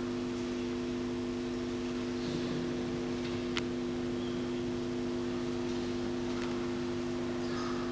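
Steady electrical hum: a buzzy set of fixed low tones over faint tape hiss, unchanging throughout, with a faint click about three and a half seconds in.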